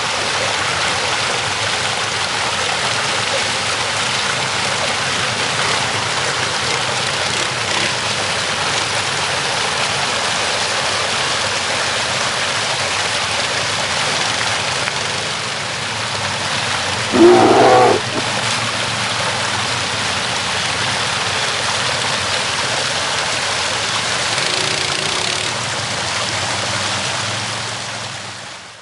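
Water rushing over a rocky creek cascade in a steady loud rush, with ATV engines running underneath. About two-thirds of the way through, a brief, very loud pitched cry cuts over the water, and the whole sound fades out at the end.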